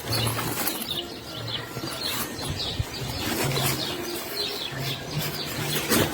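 Birds chirping in outdoor ambience, with short low hums at changing pitches underneath.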